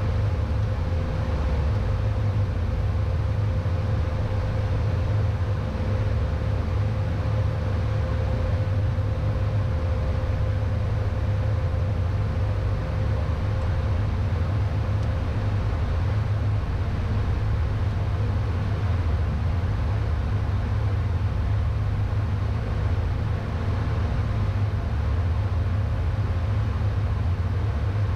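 Steady cockpit noise of a Beechcraft Premier I business jet on final approach: a constant low rumble of airflow and engines, with a faint steady tone above it.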